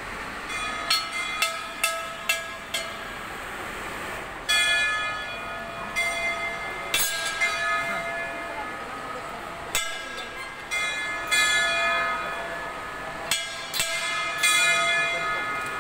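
Temple bells being struck again and again, each stroke ringing on and fading. There are five quick strokes in the first three seconds, then longer-ringing strokes at uneven gaps, with a cluster of several more near the end.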